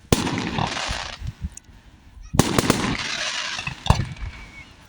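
Fireworks going off: a sharp bang at the start followed by about a second of crackling hiss, then a second bang about halfway through with a longer crackle, and a last sharp crack near the end.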